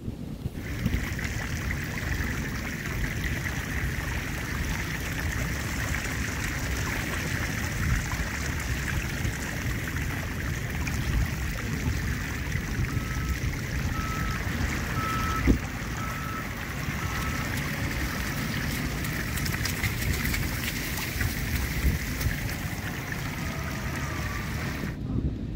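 Steady rushing outdoor noise of wind and distant surf. Near the middle, a vehicle's reversing alarm beeps about six times, evenly spaced.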